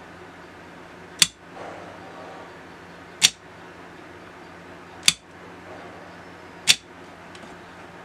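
Four sharp, loud clicks about two seconds apart, in on–off pairs with a faint hum between the clicks of each pair: an RFID-controlled lock circuit switching on and off as a tag is presented to its reader.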